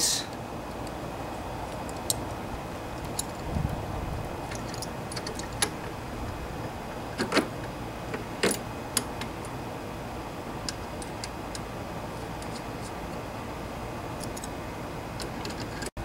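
Scattered light metallic clicks and clinks of a ring of small combination wrenches and the mower's control-cable fittings being handled, with two louder clinks a little past the middle.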